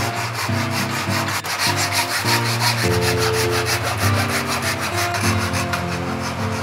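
Wood being sanded in quick, even rubbing strokes, about six a second, over background music with a moving bass line.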